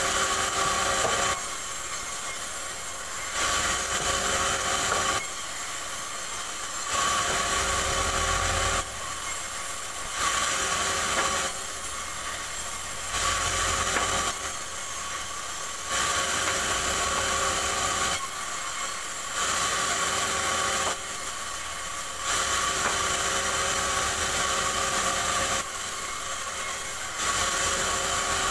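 Bandsaw running and cutting rubberwood in repeated passes: about nine louder cuts of one to three seconds each, with the blade running lighter in between.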